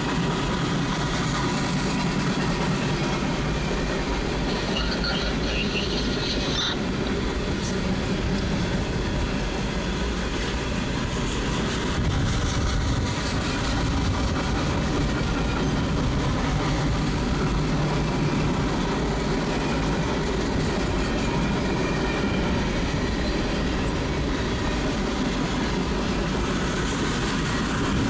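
Freight train of tank cars rolling past at a grade crossing: a steady, continuous noise of wheels on the rails and cars going by, heard from inside a car.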